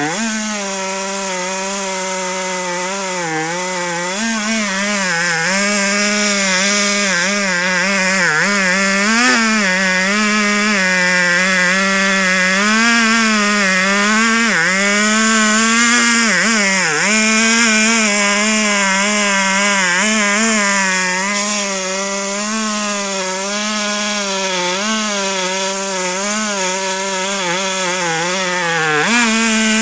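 Petrol two-stroke chainsaw running at full throttle in a chainsaw-mill frame, ripping a plank lengthwise from a log. The engine pitch wavers as the chain loads in the cut, dipping sharply about halfway through and again near the end.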